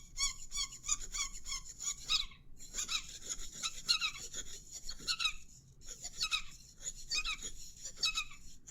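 Cartoonish high-pitched squeaky sound effects in quick runs of several squeaks a second, broken by short pauses about two and five and a half seconds in.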